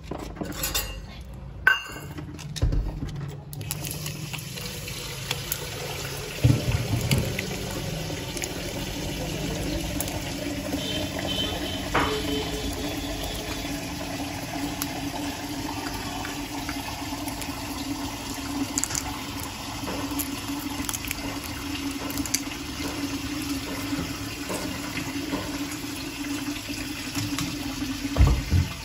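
Steady rushing, water-like noise with a low hum underneath. Over it come a few separate light knocks and clicks as tablets are dropped into a stainless steel mug and a plastic cup.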